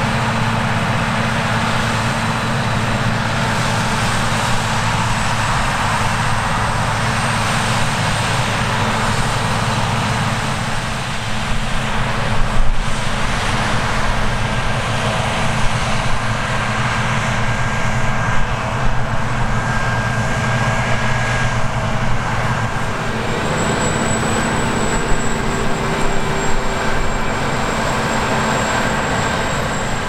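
Claas Lexion 770 TT combine harvester running under load while harvesting grain: a steady engine drone with thin high whining tones over it, and one sharp knock about twelve seconds in.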